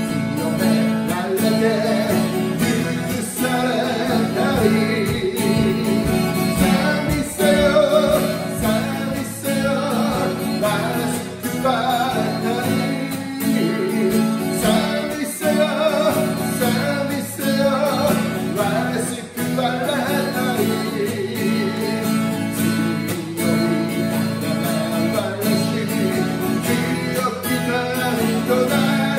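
A man singing a Japanese hymn, accompanying himself on acoustic guitar.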